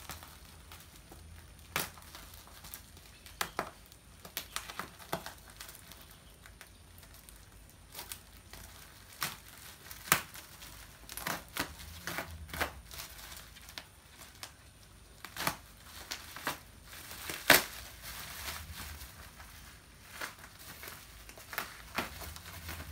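A parcel's taped black plastic wrapping being torn open and pulled apart by hand: irregular crinkling with sharp rips, the loudest about three-quarters of the way in.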